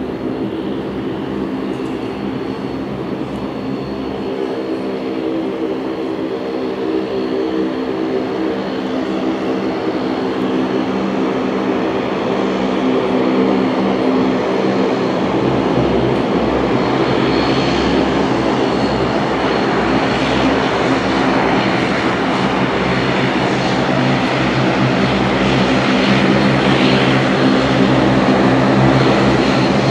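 Horizon Air turboprop airliner's engines and propellers running steadily as it taxis in after landing: a drone with several steady pitched tones and a faint high whine, getting steadily louder as the plane comes closer.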